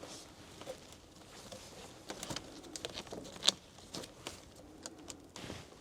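Faint, scattered light clicks and rustling of a plastic cable tie being fastened around car wiring, with one sharper click about three and a half seconds in.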